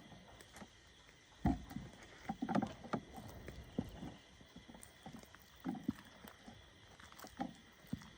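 Scattered soft thuds and knocks with a few light clicks, irregularly spaced, of things being handled and set down. The loudest thud comes about a second and a half in.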